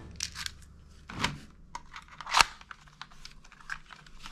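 Plastic toy guns clicking and knocking against one another as they are handled and lifted out of a cardboard box, with the sharpest knock about two and a half seconds in.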